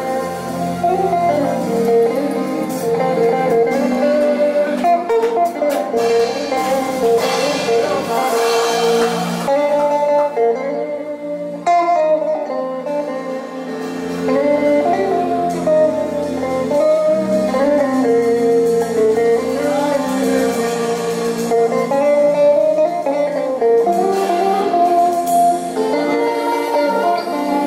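Electric guitar playing a melodic lead line with long held notes that bend and slide in pitch, over a steady band backing with bass.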